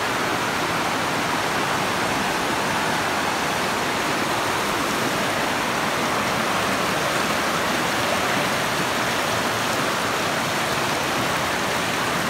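A mountain creek rushing over rocks and small rapids, a steady, unbroken rush of water.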